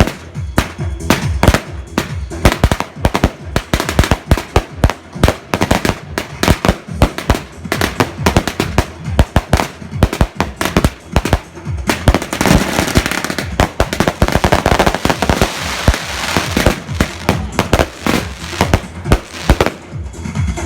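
Fireworks going off in a rapid, irregular volley of sharp bangs, several a second, thickening into a dense crackling stretch past the middle and stopping near the end.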